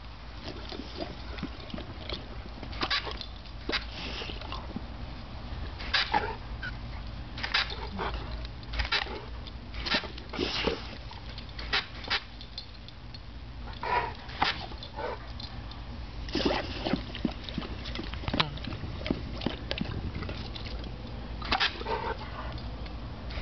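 Bullmastiff making short barks and vocal bursts every second or two as it lunges and bites at a jet of water from a garden hose spray nozzle.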